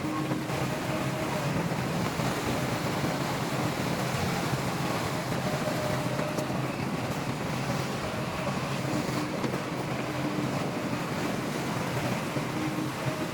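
Heavy-equipment diesel engine running steadily, with wind noise on the microphone; a faint whine comes and goes a few times.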